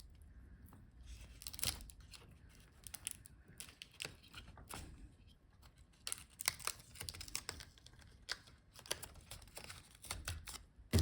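Faint scattered clicks and rustling of hands working inside an open laptop, lifting the display cable out of its routing along the cooling fan.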